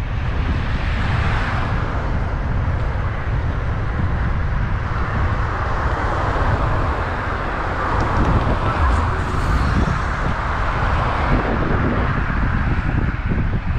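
Steady road and traffic noise with wind buffeting the microphone.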